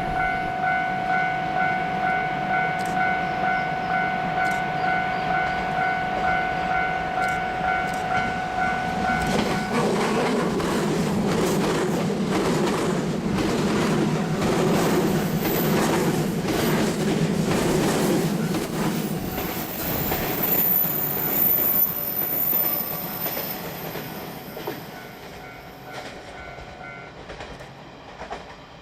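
Level crossing warning bell ringing about twice a second. About ten seconds in, an electric train passes over the crossing, its wheels clattering over the rail joints for about fifteen seconds. The bell is heard again as the train fades, then stops near the end.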